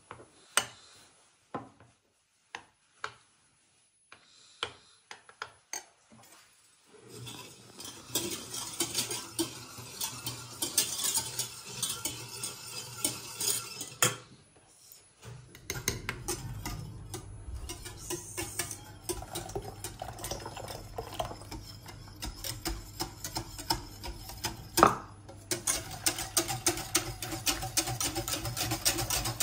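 A metal spoon stirring a paste in a ceramic bowl, clinking against the bowl in separate taps, then a wire whisk beating milk in a stainless steel saucepan: fast, continuous rattling and scraping of wire on steel. It breaks off briefly about halfway, then the whisking resumes with a low hum beneath it.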